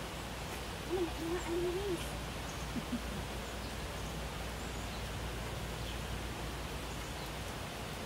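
Steady rush of a rocky mountain stream and waterfall, with a brief faint wavering call about a second in.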